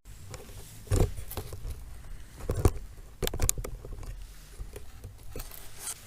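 Footsteps on a dirt trail: irregular scuffs and crunches, the loudest about a second in and about two and a half seconds in, over a low steady rumble.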